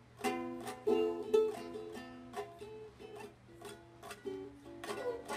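Ukulele being strummed, chord after chord at an uneven pace.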